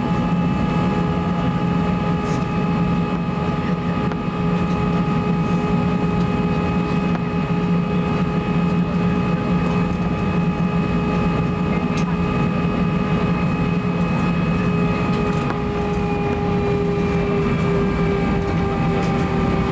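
Airbus A320 jet engines at idle during taxi, heard inside the cabin: a steady low hum with several steady whining tones over a broad rush. Near the end some of the tones sag slightly in pitch.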